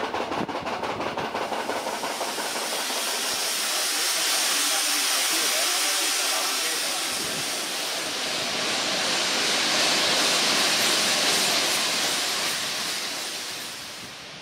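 A steam locomotive standing at a station with steam hissing loudly and steadily; the hiss swells and then fades near the end. In the first second or so, the rhythmic clicking of train wheels on rail joints can be heard.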